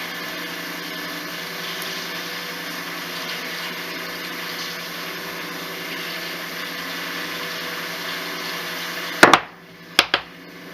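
Steady mechanical hum with a low buzz, then two sharp knocks about nine and ten seconds in, after which the hum drops away.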